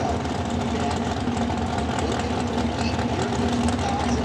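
Engines of two Super Comp dragsters idling steadily, with no revving.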